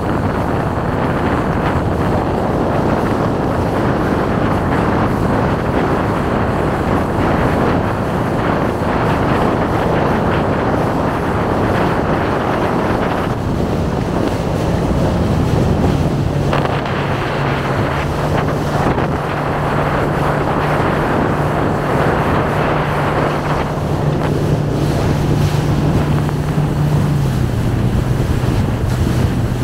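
Wind buffeting the microphone over choppy water rushing past a moving boat. About halfway in, a steady low motor hum joins and drops a little in pitch near the end.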